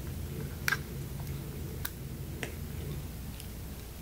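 A few light, sharp clicks of a plastic blush compact being handled and its lid clasp worked open, the first about a second in the loudest, over a low steady hum.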